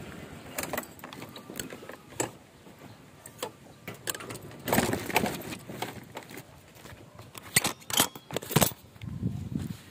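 Footsteps along a paved street, with scattered light clicks and rattles at irregular intervals.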